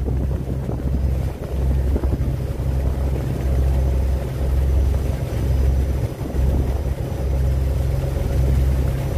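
Wind buffeting the microphone in uneven gusts on the deck of a moving ro-ro car ferry, over the steady low drone of the ferry's engines.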